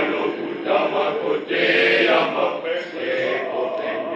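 Choir of boys and young men singing together, swelling louder about halfway through.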